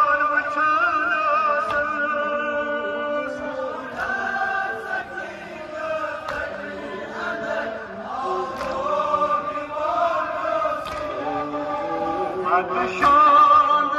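A man chanting a Kashmiri noha, a Shia lament, into a microphone and amplified over street loudspeakers, with other voices in the crowd chanting along. The melody is drawn out with wavering held notes.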